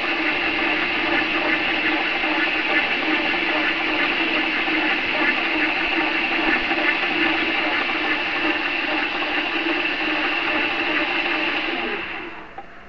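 Metal lathe running with its chuck spinning while a cutting tool turns down a metal part. It makes a steady mechanical running noise that falls away sharply about a second before the end.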